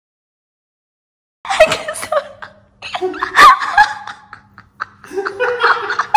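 Dead silence for about a second and a half, then laughter and chuckling in uneven bursts, with a few spoken sounds mixed in.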